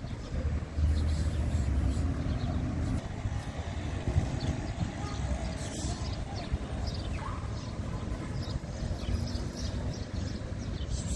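Outdoor street ambience: a steady low rumble like distant traffic, heaviest a second or two in, with faint short high chirps over it.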